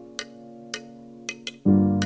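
Background music: sustained keyboard-like chords that slowly fade, a new chord struck about one and a half seconds in, over a light ticking beat about twice a second.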